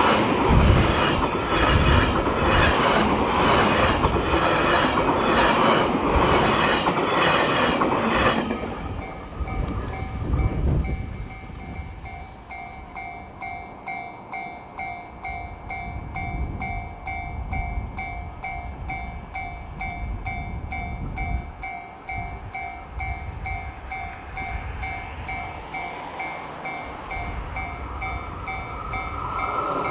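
Electric multiple-unit train passing close by at a level crossing, wheels clacking in a steady rhythm over the rail joints, then cutting away after about eight seconds. The crossing's warning bell then keeps ringing in a steady repeating ding, the crossing still closed, and a second train's rumble grows near the end.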